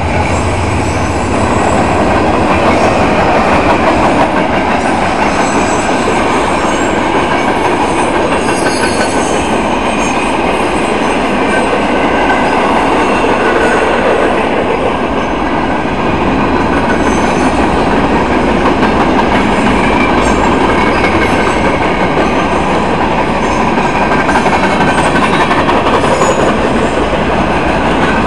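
Freight train cars rolling steadily over the rails, a continuous loud rumble and rattle with faint high wheel squeals now and then.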